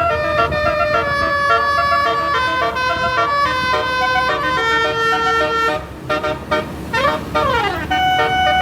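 Basuri (telolet) multi-tone bus horn playing a melody in held, stepped notes, with a short siren-like swoop that falls in pitch about seven seconds in.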